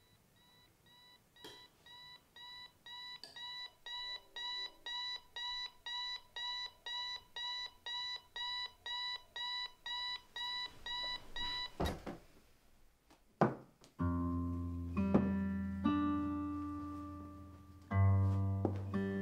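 Electronic alarm clock beeping in a fast, even run of high beeps, about two to three a second, growing louder over the first few seconds. The beeping stops with a knock about twelve seconds in. A couple of seconds later, music with low, sustained notes begins.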